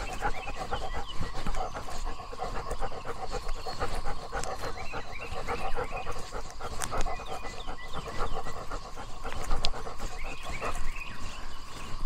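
A dog panting in a quick, even rhythm that stops near the end, over a steady high tone in the background.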